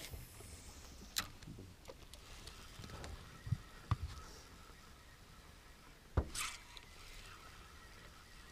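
A few scattered knocks and clicks from spinning tackle and the boat as a lure is reeled in, the loudest knock about six seconds in followed by a short hiss.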